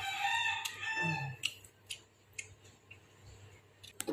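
A rooster crowing once, a call of a little over a second. It is followed by a few scattered light clinks of a utensil against the wok.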